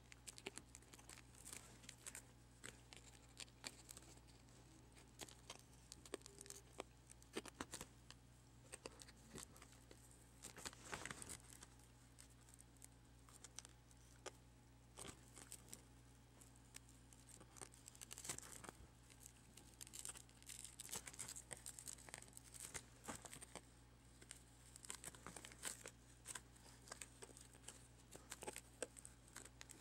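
Faint, irregular crackling and tearing as the rubber adhesive tape holding a cracked touchscreen digitizer is peeled away from the laptop's LCD, with small clicks of the broken glass, played back sped up.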